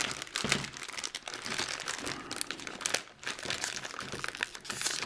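Thin clear plastic bag holding plastic model-kit parts crinkling irregularly as it is handled and the tape closing it is cut with a pocket knife, with a short lull about three seconds in.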